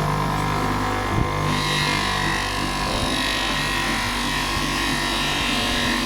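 Electric polishing machine running steadily with a hum, buffing a copper piece; a hiss joins in about a second and a half in.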